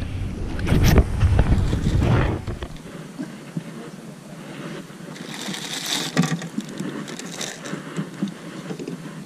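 Low rumble of handling and wind on a body-worn camera's microphone for the first three seconds, then light scrapes and clicks of fishing tackle being handled.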